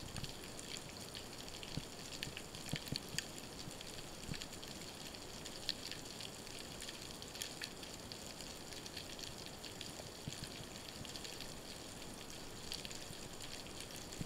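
Underwater ambience: a steady hiss with scattered faint crackling clicks, and a few louder clicks about two to three seconds in.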